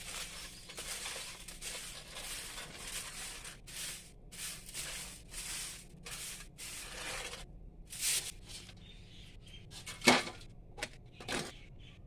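Household clatter: a run of irregular scraping strokes, then a few sharp clinks of dishes or utensils being handled, the loudest near the end.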